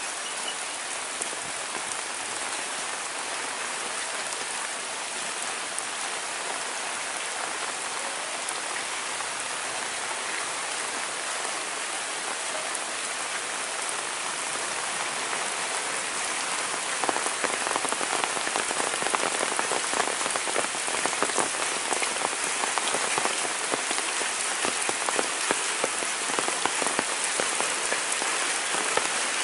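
Steady rain falling on wet paving, puddles and foliage. About halfway through it grows a little louder, with more distinct close drops.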